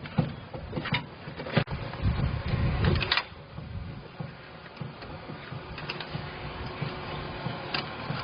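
A few sharp mechanical knocks and clicks over a low rumble, the rumble strongest around two to three seconds in.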